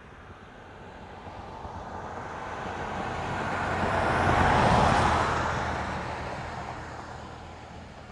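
A car passing by: the engine and tyre noise swells steadily, peaks a little under five seconds in, then fades away.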